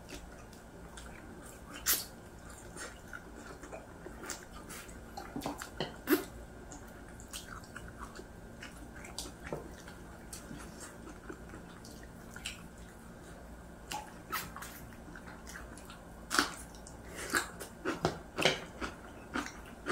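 Eating sounds from two people gnawing braised pork back ribs: scattered lip smacks, sucking and small clicks of chewing, over a faint steady hum. The smacks come more often in the last few seconds.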